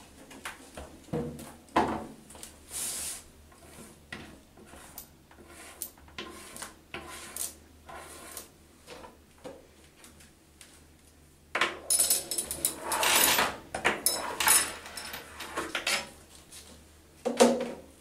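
Scattered clicks and knocks from a parrot test enclosure as the apparatus and small metal tokens are handled. About two-thirds of the way through comes a few seconds of denser, bright metallic clinking and rattling, and a sharp knock follows near the end.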